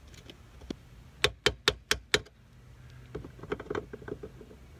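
Screwdriver prying and tapping at a bearing race rusted onto a garden cart's steel axle shaft: five sharp metal clicks in quick succession, then a short scraping rattle. The race is seized to the shaft by corrosion.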